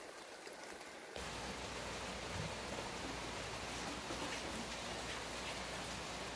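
Steady rain falling, with scattered drops ticking; it turns suddenly louder about a second in.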